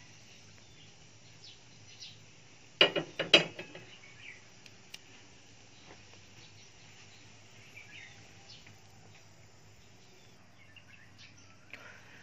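Faint bird chirps over a low steady hum, broken about three seconds in by a short clatter of a few sharp knocks.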